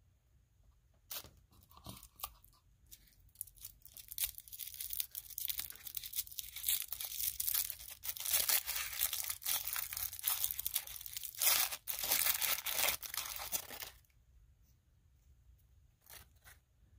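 Plastic wrapping of a small L.O.L. Surprise doll accessory packet being torn open and crinkled by hand. The crackling builds up, is loudest about eight to thirteen seconds in, and stops suddenly about fourteen seconds in; a few light clicks follow.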